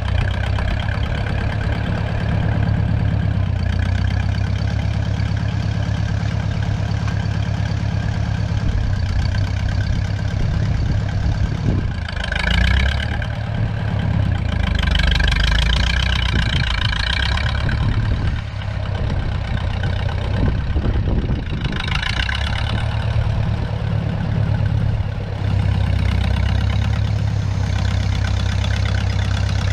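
Gasoline engine of a 1956 Case 411 loader tractor running steadily, with three short louder, higher-pitched stretches about twelve, fifteen and twenty-two seconds in as the tractor works.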